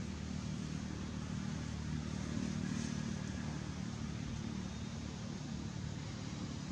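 An engine running steadily, a low hum over a faint hiss.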